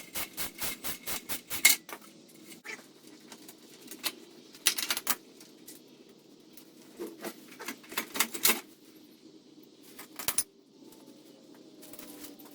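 Metal hand tools at work on a mini bike being taken apart: a quick run of evenly spaced metallic clicks in the first second and a half, then scattered clicks and clinks.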